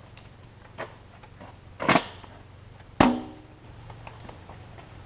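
Tools being handled during body-filler work: light clicks, a brief scrape about two seconds in, then a sharp knock with a short metallic ring a second later.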